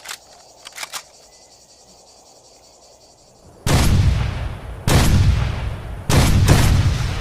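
Dragunov SVD semi-automatic sniper rifle firing three shots about a second apart, starting about halfway in. Each is a sharp crack followed by a long rolling boom. Before the shots there are a few faint clicks over a faint high hiss.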